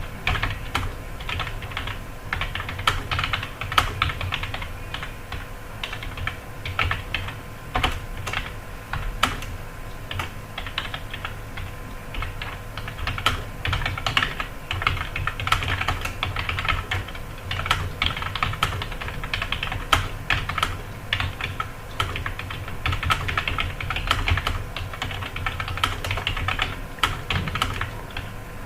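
Computer keyboard being typed on continuously and quickly: a dense, uneven stream of key clicks, several a second, during a timed typing speed test.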